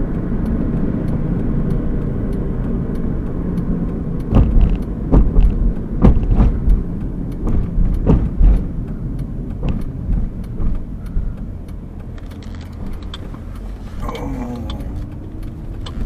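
Car on the move, heard from inside the cabin: a steady low rumble of road and engine noise. Several loud knocks and bumps come in the middle.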